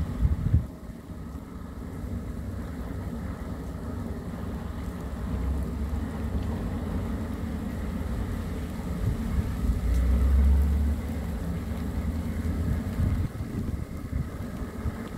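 Low, steady rumble of the plough dredger Fastnet Sound's engine as it tows through the channel, with wind buffeting the microphone. The wind is strongest at the very start and again about ten seconds in.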